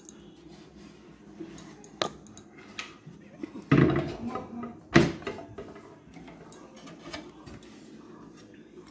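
Kitchen cabinet being handled: a few light knocks, then a louder clatter about four seconds in and a sharp knock a second later, as the wooden door is moved and the steel pots and utensils inside knock together.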